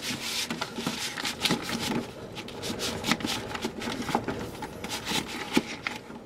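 LP sleeves and cardboard record jackets being handled: paper and card rustling and sliding against each other, with many light taps and clicks.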